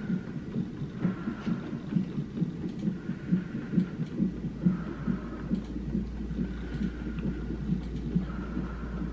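Fetal heart monitor's Doppler speaker playing the baby's heartbeat as a fast, even pulse, a little over two beats a second. A steady low hum joins about four seconds in.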